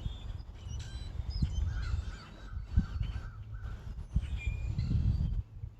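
Birds calling and chirping, including a quick series of short calls in the middle, over a steady low rumble.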